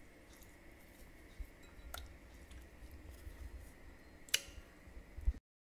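Faint handling sounds of roasted red peppers being torn by hand and dunked into a glass bowl of oil-and-vinegar dressing, with two sharp clicks about two seconds apart. The sound cuts off abruptly near the end.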